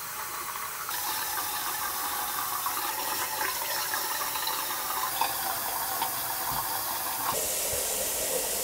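Tap water running steadily into a bathroom sink, its flow shifting slightly about a second in and again near the end.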